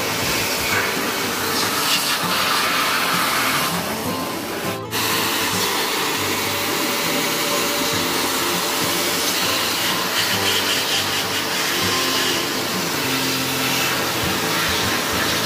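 Cordless handheld electric air blower running steadily, blasting air into the opened indoor unit of a split-type air conditioner to clear out dirt and ant nests. It dips briefly about five seconds in, then resumes.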